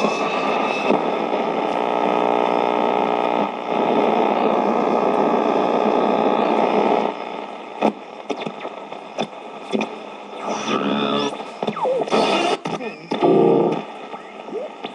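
Zenith portable radio tuned between stations: a steady hiss of static with faint whistles. About seven seconds in it gets quieter and turns to crackles, clicks and short gliding squeals as the dial moves.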